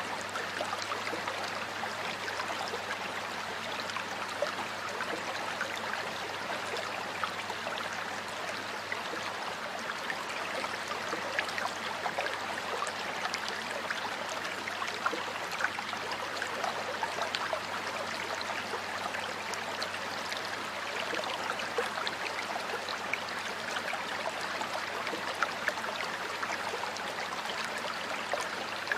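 A stream running steadily over rocks, with a constant rush and many small splashes and gurgles.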